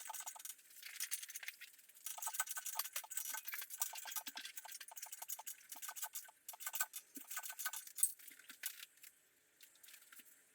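Rapid light clicking and clinking of small hard objects, dense for most of the stretch and thinning out near the end.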